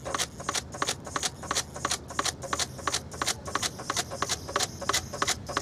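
OFM Swift TR260 tilt-rotor quadcopter walking on stone by rocking its tilting rotor arms, its metal landing skids clicking and scraping at a steady pace of about four clicks a second.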